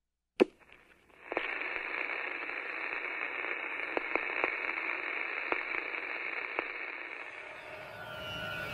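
Radio static: a steady, narrow-band hiss with scattered crackles and clicks, starting about a second in after a single sharp click and easing off near the end.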